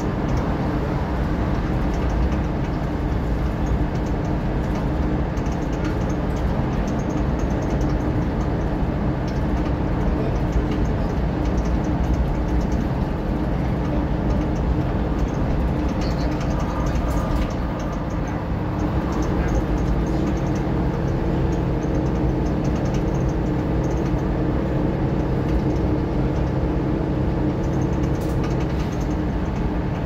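Mercedes-Benz Citaro O530 bus under way, heard from inside: a steady diesel engine drone over road and tyre noise, with a few light rattles and a short dip in loudness a little after halfway.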